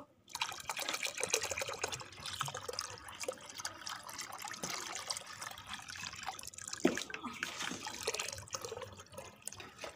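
Spring coil whisk beating thin kadhi batter in a plastic bowl: a continuous, irregular wet sloshing and splashing.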